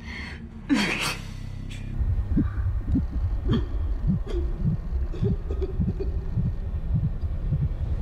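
A person's sharp gasp about a second in, then a low rumbling drone with irregular soft thuds.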